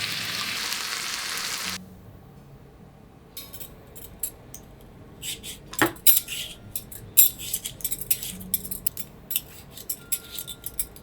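Food sizzling in a frying pan, cutting off suddenly about two seconds in; then a string of light clinks and taps of kitchen utensils and dishes, with a louder knock about six seconds in.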